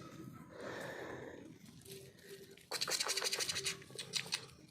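Puppy scratching and scraping: a soft rustle early on, then from about halfway through a quick run of sharp, rapid scratchy clicks.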